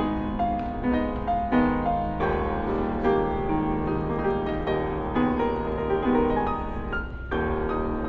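Acoustic grand piano played live: a flowing line of notes and chords, with a brief break in the playing about seven seconds in. A low steady rumble of background noise runs underneath.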